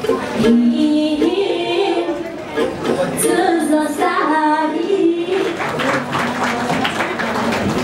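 A voice singing a slow melody of held, stepping notes that ends about five seconds in, followed by an audience clapping.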